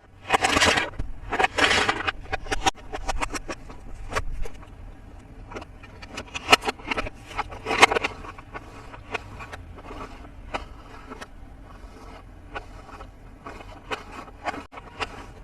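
Toy packaging being handled and opened: two loud rustles in the first two seconds, then a run of small clicks and scrapes.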